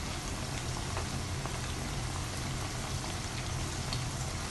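Potato-and-onion gram-flour pakoras deep-frying in hot oil: a steady sizzle dotted with small crackles.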